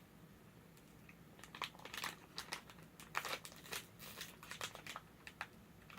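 Plastic candy wrapper on a lollipop being crinkled and pulled open: faint, irregular crackling that starts about a second and a half in.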